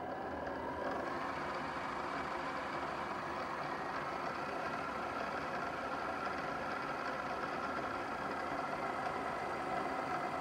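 SX3 mini mill spindle speeding up over the first second or so, then running steadily at about 1,580 rpm with an even pitched whine.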